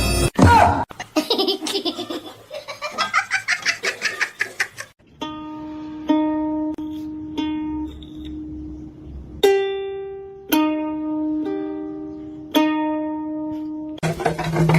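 Background music: a few seconds of rapid, pulsing laugh-like sounds, then a slow plucked-string melody, each note ringing and fading before the next.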